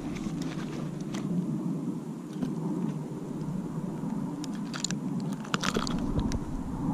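Scattered clicks and rattles from handling a small flounder and fishing gear in a kayak, over a low steady rumble, with a cluster of sharp clicks near the end.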